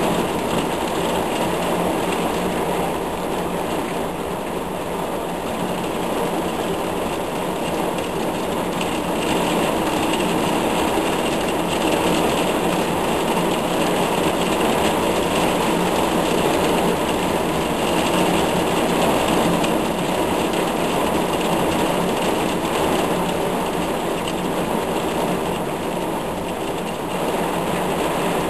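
Heavy thunderstorm downpour: a loud, steady rush of rain.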